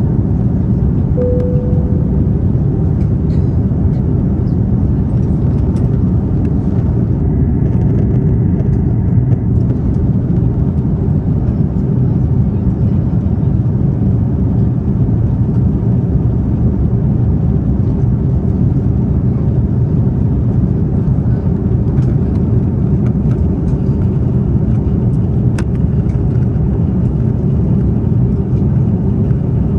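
Steady jet airliner cabin noise in flight: a constant low rumble of engines and airflow heard from a window seat, with a short single tone about a second in.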